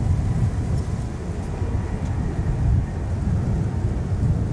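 Distant low rumble of an Airbus A340-500's four Rolls-Royce Trent 500 jet engines as the airliner approaches head-on to land; steady, uneven and deep, with little high-pitched whine.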